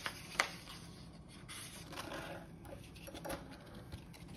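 Paper wall calendar being handled: two sharp clicks in the first half second, then paper rustling and rubbing as its pages are flipped and pulled at its metal clip.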